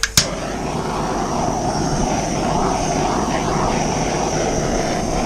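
A handheld electric blower switched on with a click just after the start, then running steadily with an even whoosh of fan and air.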